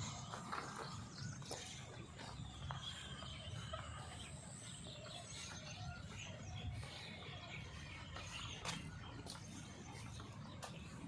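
Many small birds calling and chirping in short scattered notes, over a faint low rumble. A thin steady high whine sounds through the first half.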